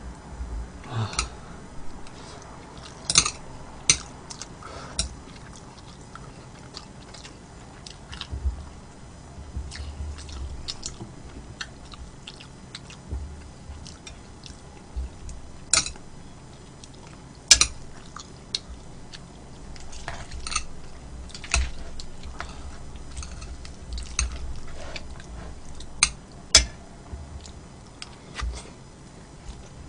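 Close-miked eating: a person chewing food, with about a dozen sharp clicks scattered through, the loudest a little past halfway.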